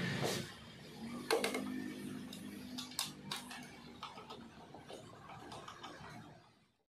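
Small clicks and taps as an amber plastic turn-signal lens is pressed onto a Vespa body panel and a screwdriver fastens its screw; the sound fades out near the end.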